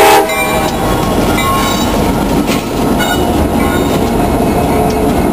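A horn blast cuts off just after the start. Then a pair of Buffalo & Pittsburgh EMD SD60 diesel locomotives rumble past close by, their wheels clicking a few times over the rail joints.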